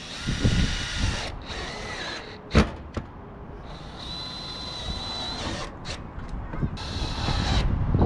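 Cordless drill driving screws into corrugated metal roofing: two stretches of motor whine, with a sharp knock about two and a half seconds in. Wind rumbles on the microphone, louder near the end.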